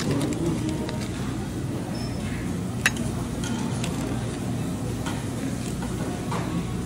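Buffet dining-room bustle: a steady murmur of diners with scattered clinks of dishes, cutlery and serving tongs, and one sharp clink about three seconds in.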